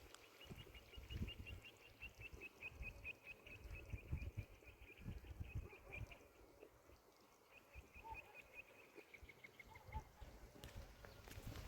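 Faint, rapid, high-pitched chirping from a small animal, about six chirps a second, in two runs separated by a short gap, the second run falling slightly in pitch. Low thumps and rumble sit underneath.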